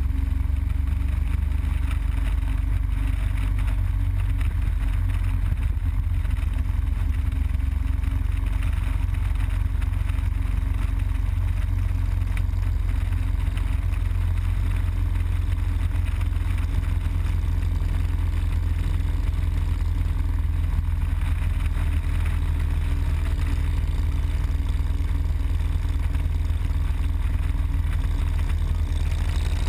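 Harley-Davidson Road Glide Custom's V-twin engine running steadily at highway cruising speed: a deep, continuous rumble mixed with the rush of wind over the camera microphone.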